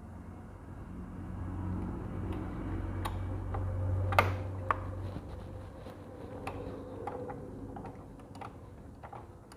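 Scattered light clicks and taps of hands and tools working on a motorcycle's front fork, the sharpest about four seconds in, over a low steady hum that fades out about halfway through.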